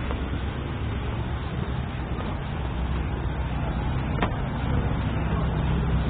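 Road traffic: a steady low engine rumble under a wash of street noise, with one sharp click about four seconds in.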